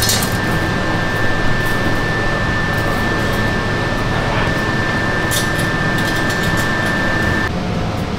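Steady factory machinery and ventilation noise, with a thin high whine that cuts off about seven and a half seconds in and a few light ticks partway through.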